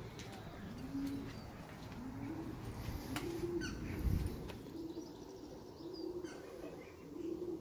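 Pigeons cooing: a low coo repeated about once a second, with a dull thump about four seconds in.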